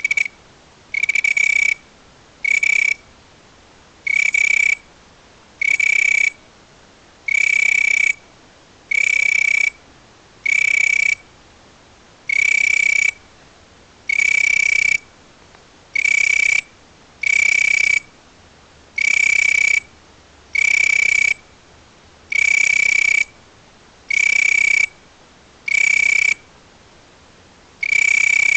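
An insect's night call: a shrill whistling chirp at one steady pitch, repeated over and over at about one every one and a half seconds, each chirp lasting under a second.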